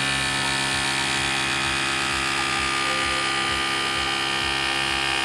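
Small electric air-ride suspension compressor on a motorcycle running with a steady whine, pumping up the air suspension.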